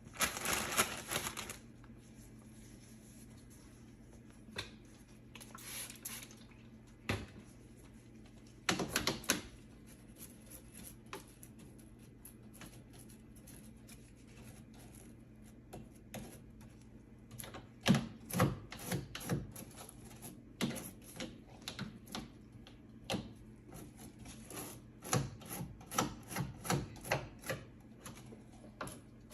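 Scrubbing on a greasy microwave surface: short brisk strokes in scattered bursts about a second in and near 9 s, then a long run of quick, evenly spaced strokes through the second half.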